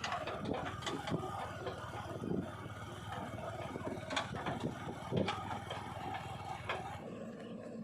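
A JCB 3DX backhoe loader's diesel engine running, with several sharp metallic clanks and scrapes from the bucket work. The low engine drone drops off near the end.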